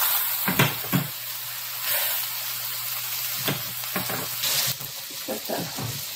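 Lemon halves and butter sizzling steadily in an electric skillet, with a few light knocks scattered through.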